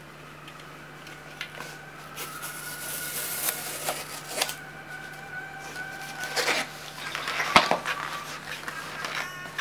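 Hands opening cardboard shipping boxes: paper tear strips ripped along the box edges and flaps scraped and pulled apart, with scattered rustles and one sharp cardboard knock about three quarters of the way in, over a steady low hum.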